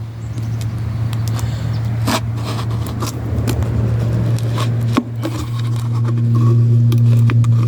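A plastic bottle being cut with a blade: scattered scraping and crackling clicks of the plastic. Under it runs a steady low engine-like hum that grows louder toward the end.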